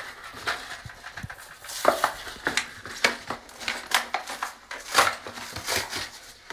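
Stiff plastic blister packaging crackling and snapping in irregular bursts as a new toilet flapper is pulled out of its clear plastic tray.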